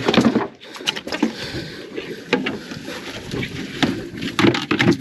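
Handling noise on a small fishing boat while a tuna is brought alongside: irregular knocks and clatter over a steady rushing wash.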